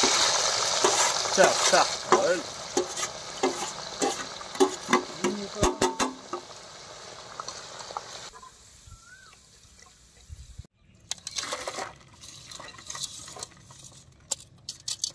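Shredded potato deep-frying in hot oil in an aluminium pan. A loud sizzle, strongest just after the potato goes in, fades over the first several seconds. The wire spider skimmer clinks and scrapes against the pan as the potato is stirred.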